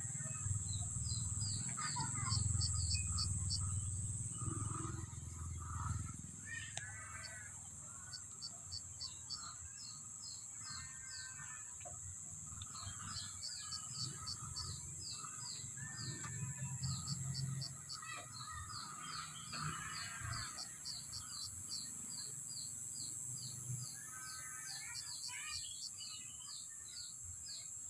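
Birds chirping in an open field: runs of quick, high chirps repeating several times a second, mixed with other short bird calls, over a steady high-pitched drone. A low rumble sits under it for the first few seconds.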